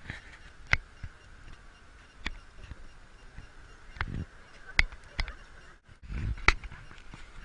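Camera shutters clicking in the surrounding crowd: about six sharp, irregular clicks, the loudest near the end, over a faint steady hiss.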